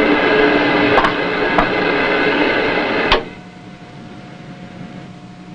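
Submarine periscope hoist running as the periscope is raised: a loud, steady mechanical whir with a couple of small clicks. About three seconds in it stops with a clunk, leaving a much fainter steady hum.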